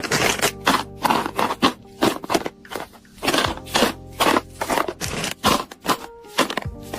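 Music with sharp, scratchy noise hits about three times a second over sustained tones.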